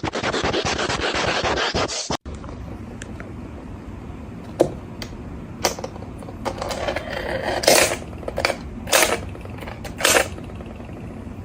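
Dense scratching and rubbing for about two seconds that cuts off abruptly, then a run of separate sharp clattering knocks, roughly one a second.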